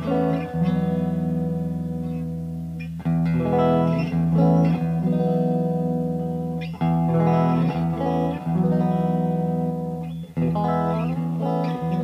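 1982 Made-in-Japan Tokai Silver Star electric guitar played through an amplifier: chords struck and left to ring out, a new one every two to three seconds, with a few picked single notes between them.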